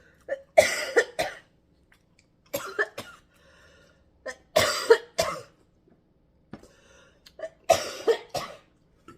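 A person coughing in four short fits of two or three coughs each, from spicy butter sauce catching in the throat.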